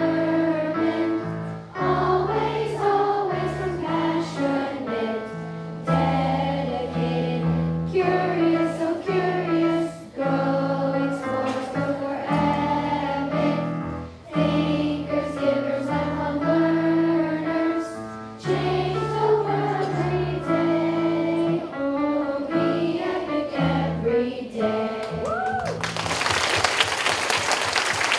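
A roomful of children singing a song together with a girl on a microphone, over piano accompaniment. The song ends about 26 seconds in and applause breaks out.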